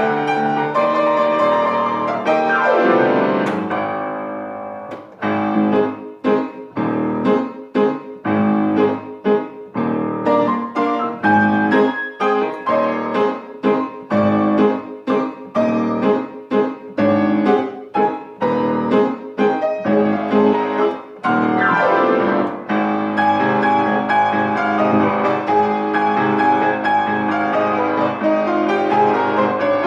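Piano solo. Held chords die away, then comes a long stretch of short, detached chords with brief silences between them, and from about two-thirds of the way through, fuller continuous playing.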